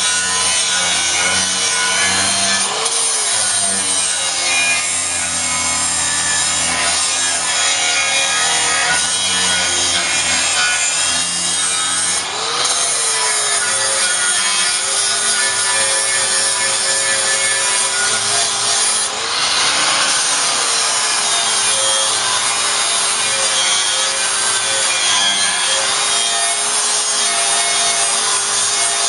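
Handheld angle grinder grinding steel, with a continuous harsh grinding noise over a motor whine that wavers with the load. The sound dips briefly twice, about twelve and nineteen seconds in, and the whine rises in pitch as it picks back up.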